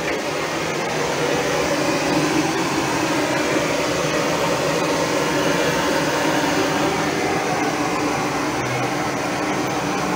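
Steady rushing hiss of high-pressure gas wok burners, growing a little louder over the first couple of seconds.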